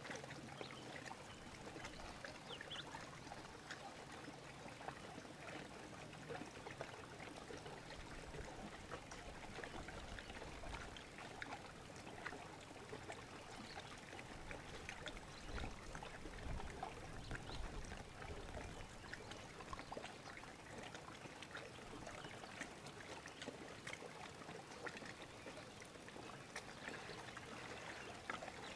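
Faint water trickling and lapping against a kayak's hull, with many small splashy ticks throughout.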